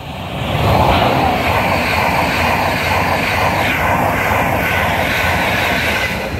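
InterCity 225 express (Mark 4 coaches with a Class 91 electric locomotive) passing at high speed: a loud, steady rush of wheels on rail and air. It builds within the first second and begins to fall away as the locomotive clears near the end.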